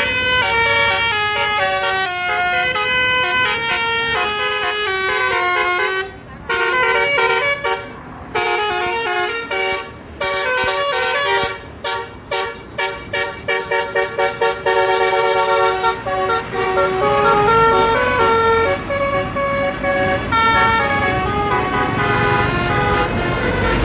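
Bus telolet horns: multi-tone air horns on tour buses playing stepped melodic tunes, note after note. In the middle comes a run of short rapid toots that speed up, before longer held notes return.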